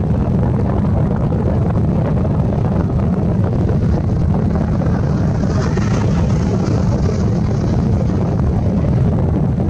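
Royal Navy Lynx helicopter lifting off from a hover and climbing away: a loud, steady rotor and turbine noise, heavy in the low end, with a higher hiss swelling briefly about halfway through.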